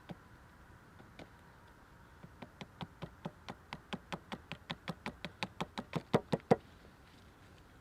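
A rapid series of sharp knocks, about five a second, getting louder and a little faster before stopping abruptly.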